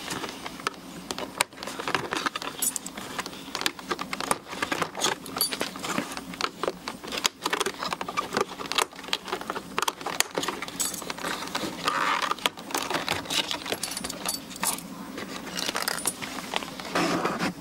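Screwdriver prying small metal clips off the edge of a pickup door's rubber seal. Irregular clicks, scrapes and metallic clinks repeat as the clips come loose.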